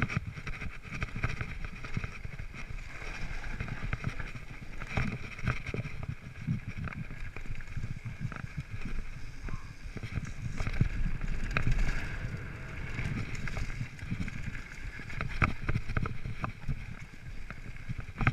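Mountain bike riding fast down a dirt trail: wind buffeting the microphone and tyres rolling over the ground, with frequent short knocks and rattles from the bike over bumps, and a steady high buzz underneath.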